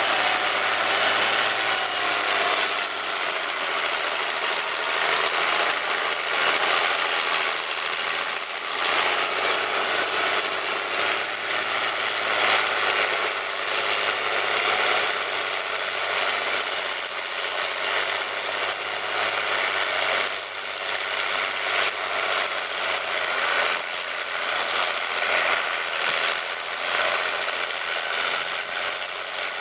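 Case IH 956 XL tractor's six-cylinder diesel engine running steadily under load as it pulls a reversible plough through wet, heavy soil.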